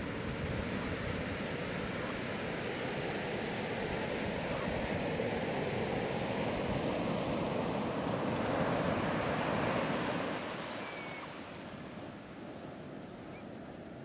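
Sea waves breaking and surf washing up a beach: a steady rushing that swells to its loudest about nine seconds in, then falls away quieter.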